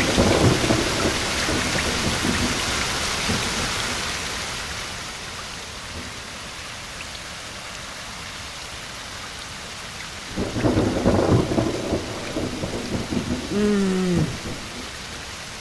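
Thunderstorm: steady heavy rain with thunder rumbling at the start and again about two-thirds of the way through. Near the end a short cry falls in pitch.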